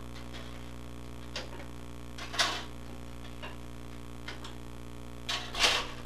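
Plastic blades of a small 12-volt ceiling fan being pulled out of the hub one after another: several short sharp clicks and rattles, the loudest about two and a half seconds in and near the end, over a steady low hum.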